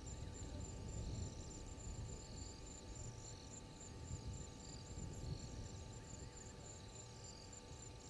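Night insects calling: one gives a high, even pulse about four times a second, and others add short bursts of chirps, over a low rumble.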